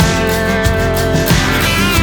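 Background pop music: an instrumental passage with guitar and a steady beat, no singing.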